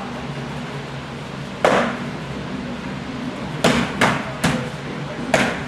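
Sparring weapons striking each other in sharp clacks: one about 1.7 s in, then four more in quick succession near the end, over a steady low hum.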